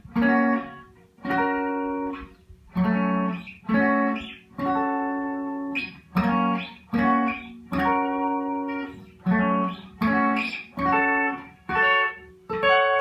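Guitar playing a series of chords, each struck and left to ring briefly, about one a second. These are G major and G minor triad shapes, the minor made by lowering the third a half step.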